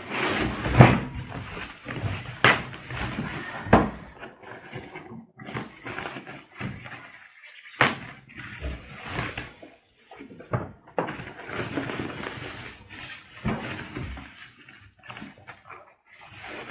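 Plastic bag rustling and crinkling while an air fryer is worked out of its cardboard box, with several sharp knocks and bumps as it is handled.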